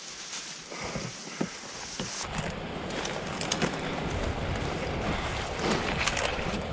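Leaves and twigs of dense scrub brushing and rustling against a person and pack as they push through, with a few small snaps. About two seconds in it changes abruptly to steady wind buffeting the microphone.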